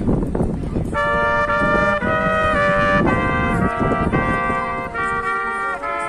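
Street buskers playing a trumpet and a trombone together, a melody of held notes stepping from pitch to pitch, over a low outdoor rumble that eases near the end.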